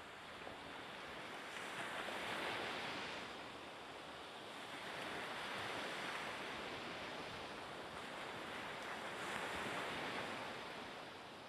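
Harbour water and wind noise, a rushing hiss that swells and fades about every three to four seconds, with no engine hum standing out.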